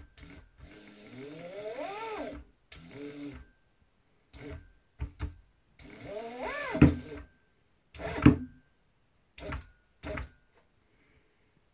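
ZY1020 500 W 24 V DC motors, driven through an MDDS30 motor driver from an RC transmitter stick, spinning up in short bursts and stopping, about ten times. Twice the motor whine rises steadily in pitch as the throttle opens, and there are two sharp loud knocks, one about seven seconds in and one just after eight.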